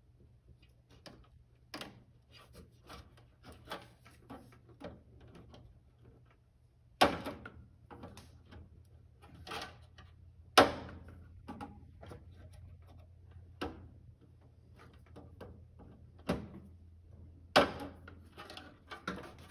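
Screwdriver prying at the plastic release tabs of a stove's clock display module: scattered small plastic clicks and scrapes, with three sharper knocks, about seven and ten seconds in and again near the end, as the tabs resist.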